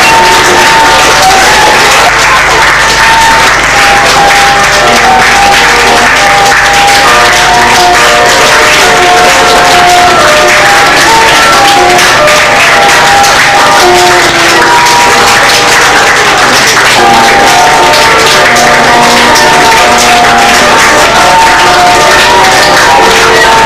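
Audience applause, a steady dense clatter of clapping, over music with a simple melody of short held notes.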